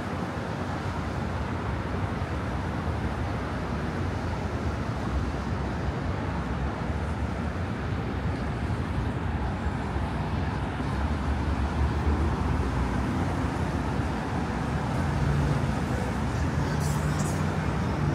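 City street traffic noise: a steady rumble of road traffic, with one vehicle's engine hum standing out in the last few seconds.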